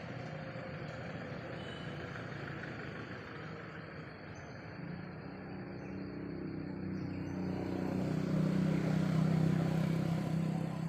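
A motor vehicle passing: its engine grows louder over the second half, peaks, then begins to fade near the end, over steady outdoor background noise.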